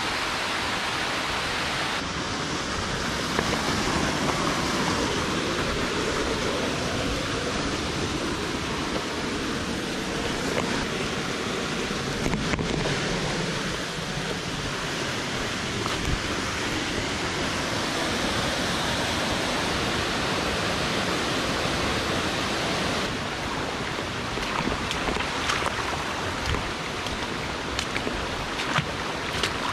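Steady rush of Setrock Creek's falling water, an even hiss with no break.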